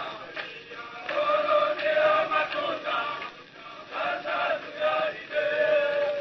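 Group of men chanting a song together in unison, in held phrases of about a second with short breaks between them.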